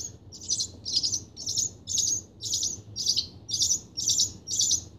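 Barn swallow nestling making a steady run of short, high begging chirps, about three a second: the call of a hungry baby bird asking to be fed.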